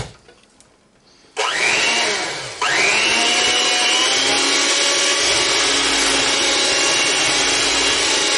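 Electric hand mixer starting up about a second and a half in, spinning up, dipping briefly, then running steadily as its beaters churn mashed baked sweet potato to pull out the stringy fibers.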